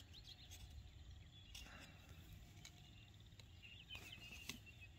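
Near silence: faint background noise with a few faint, high chirps.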